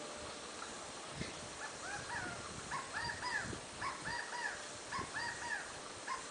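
Tui calling: short arched notes that rise and fall, repeated in little groups about once a second, from about a second in until near the end.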